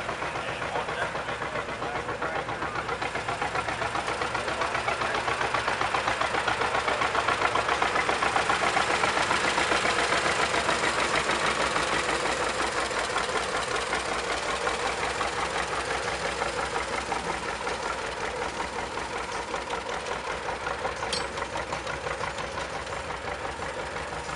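Old two-cylinder John Deere tractor engines running with a steady beat as a larger tractor tows a flooded 1944 John Deere LA to pop-start it. The sound grows louder toward the middle and then eases off.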